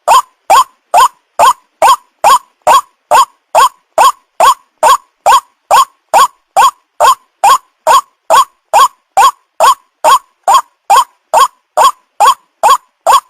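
White-breasted waterhen call played as a trapping lure: one short, slightly rising 'kwak' note repeated at a very even pace, a little over twice a second.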